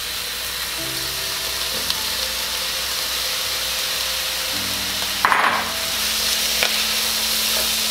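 Thawed bell peppers and onions sizzling steadily in a hot, dry skillet with corn, stirred with a wooden spoon, with one brief louder stir about five seconds in.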